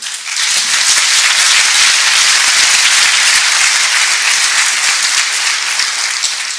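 Audience applauding, rising to full strength within about half a second and tapering off near the end.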